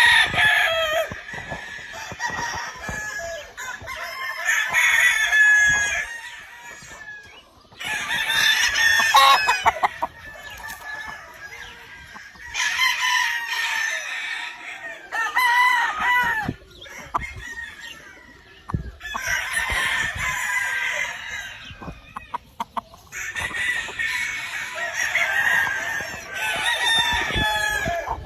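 Several gamefowl roosters crowing one after another, a loud crow every few seconds with some overlapping, and quieter calling in the gaps.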